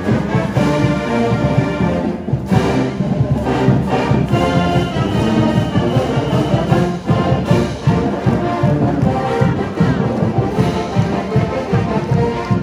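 College marching band playing live: massed brass, trombones and trumpets, over a steady drum beat.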